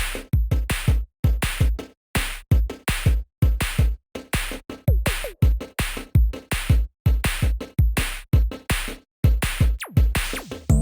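Electronic background music with a steady drum-machine beat and heavy bass kicks.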